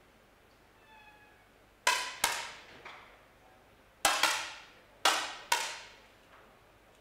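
Six sharp cracks of 10 m air rifle shots from several competitors, fired in quick succession in three close pairs, each with a short echo.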